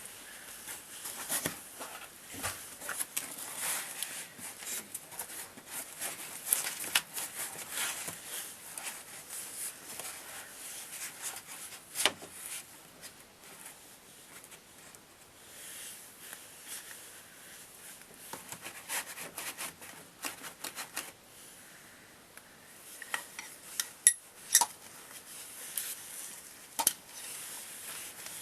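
Hand tools clinking and scraping against the metal of a van door while working at the outside door handle's mounting bolts. There are scattered sharp metallic clicks and rubbing throughout, with a few louder clicks near the end.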